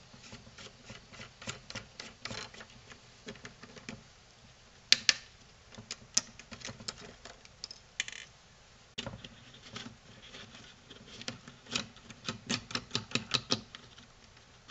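Irregular small clicks, taps and scrapes of fingers unscrewing the retaining nuts and pulling the rubber caps off the panel-mount connectors on the back of a fish finder's plastic housing. A sharper knock comes about five seconds in, and a quick run of clicks near the end.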